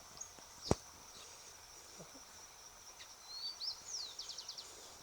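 A bird calls about three seconds in: a few short whistled notes, then a quick run of about five falling notes, over a steady high-pitched insect hum. A single sharp click comes just under a second in.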